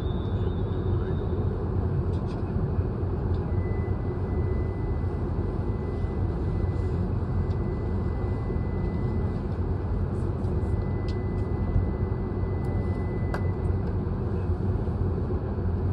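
Steady low mechanical rumble with no change in level, and a faint thin high tone held for about ten seconds in the middle.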